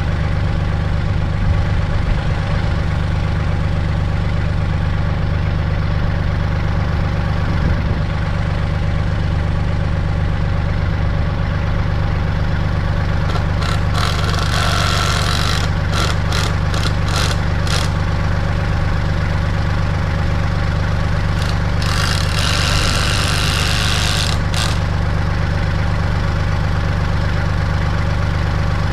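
Kubota L3800 tractor's diesel engine idling steadily. Twice, about halfway through and again later, a loud hiss with a run of sharp clicks lasts a few seconds over it.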